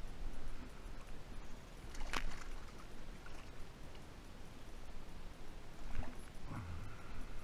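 Water splashing as a hooked largemouth bass is landed at the side of a small boat: one sharp splash about two seconds in, then more splashing near the end as a hand reaches into the water for the fish.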